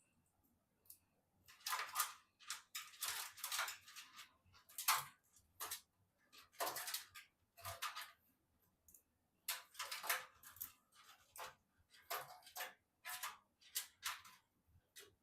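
Irregular handling noises from putting together a PC: a string of short scraping, rustling and clicking sounds of parts and packaging being handled, some in quick runs and some alone.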